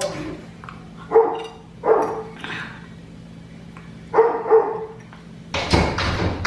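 A pet dog barking in short single barks, about five of them, then heavy thumping and rattling near the end as it knocks at a door to be let in.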